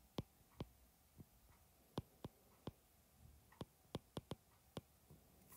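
Stylus tip tapping on a tablet's glass screen while handwriting. About a dozen short, sharp clicks come at an uneven pace over a quiet background.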